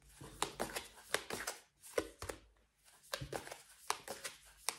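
Tarot cards being handled: shuffled and laid down, giving a run of irregular soft snaps and taps, about a dozen in all.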